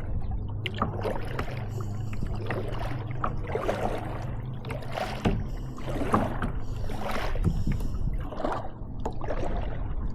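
Kayak paddle strokes dipping into and pulling through the water, a splash about once a second, over a low steady hum.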